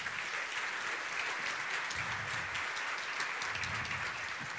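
Audience applauding: many people clapping at once, a dense, steady patter that holds its level throughout.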